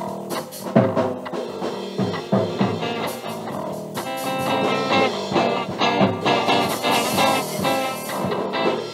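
A mono record playing: guitar-led music over a drum kit, with steady drum hits throughout.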